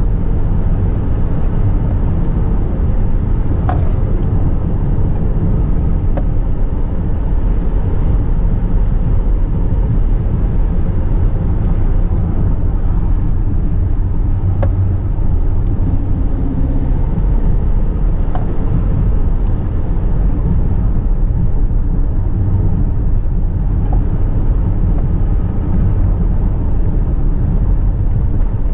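Car driving, heard from inside the cabin: a steady low rumble of engine and tyre noise, with a faint click now and then.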